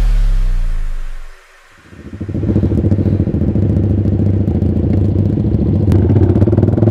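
A music track slides down in pitch and dies away. About two seconds in a motorcycle engine comes in, most likely the Yamaha R15 V3's single-cylinder engine, running steadily at low revs with a fast, even beat.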